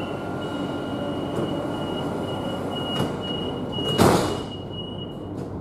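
Madrid Metro series 8000 train standing at a platform: a steady hum under a thin high-pitched tone, then a loud thud about four seconds in, typical of the sliding doors shutting. The high tone stops shortly before the end.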